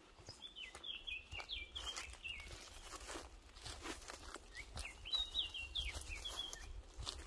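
Footsteps on a dirt and grass path, with a songbird singing two short phrases of quick twittering notes, one just after the start and one about halfway through.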